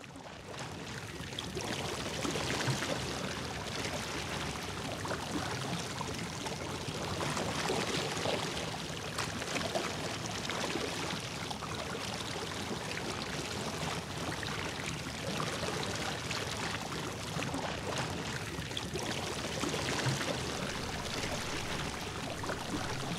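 Shallow mountain creek rushing over rocks: a steady, unbroken rush of water.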